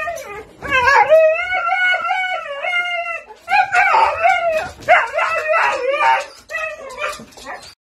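A husky howling and yowling: one long call that wavers up and down, then a run of shorter, choppier calls that break off just before the end.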